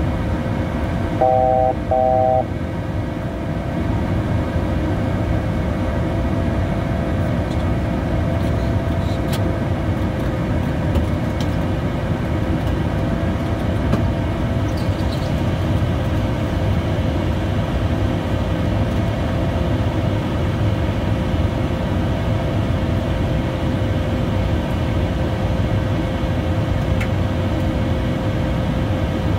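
Cabin noise inside a Bombardier Challenger 350 business jet in flight: a steady roar of airflow and its rear-mounted Honeywell HTF7350 turbofans, with a steady hum of engine tones. About a second and a half in, two short electronic beeps sound.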